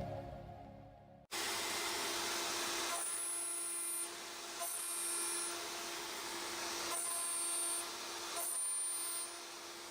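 Intro music fades out. Then a KIMLA industrial CNC router is heard milling aluminium: a steady hiss with a constant hum, and a high-pitched cutting whine that comes and goes in stretches of about a second.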